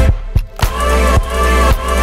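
Electronic dance music with a steady beat of about two beats a second. The upper parts drop out briefly at the start, and the full track returns with a bass hit about half a second in.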